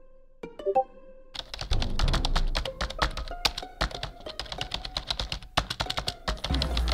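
Rapid computer keyboard typing, a fast run of clicks that pauses briefly at the start and then runs on densely. Background music with a deep bass comes in under it about a second and a half in.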